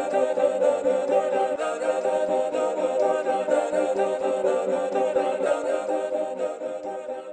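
Music track made in Soundtrap, built on layered, sustained choir-like vocal tones, beginning to fade out near the end.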